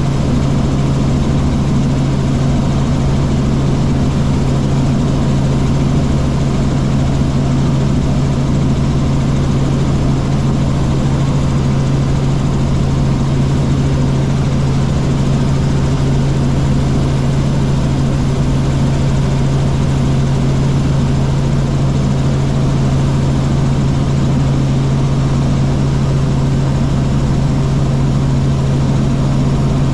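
Helicopter engine and rotors running steadily: a loud, constant low hum over an even rush of noise.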